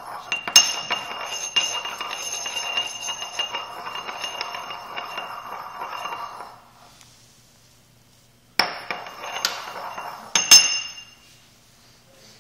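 Pestle scraping and stirring around a porcelain mortar, a continuous gritty scrape with a ringing clink, for about six seconds. After a short pause, another burst of scraping ends in a few sharp clinks near the end.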